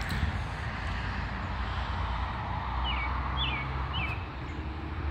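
Outdoor background of a steady low rumble, with a bird giving short chirps that fall in pitch, three in quick succession about three seconds in.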